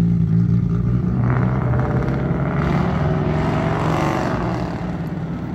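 Road traffic: a steady low engine hum, with a vehicle passing close by that builds up from about a second in, peaks around four seconds and fades away.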